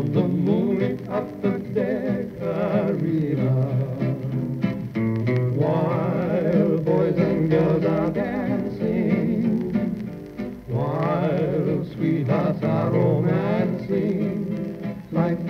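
A 1940 shellac 78 rpm record playing a vocal duet with two guitars: plucked guitar chords under a melody line with a strong vibrato, the sound cut off above the upper treble as on an old recording.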